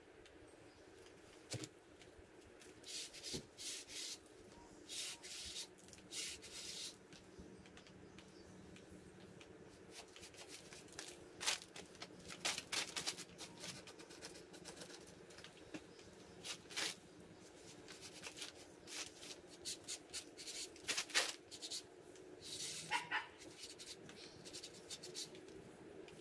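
Hand trigger spray bottle spritzing onto an engine block in short hissing bursts, some single and some in quick runs, with pauses between. A short pitched call comes near the end.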